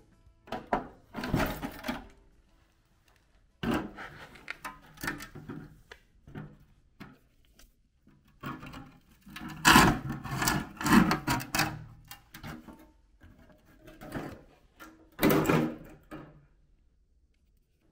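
Cut-out rusty sheet-steel footwell panel from a Land Rover Series 3 being handled and moved, clattering and scraping in irregular bursts, loudest about halfway through.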